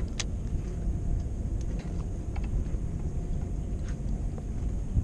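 Steady low rumble of wind buffeting the microphone outdoors, with a few faint clicks scattered through it.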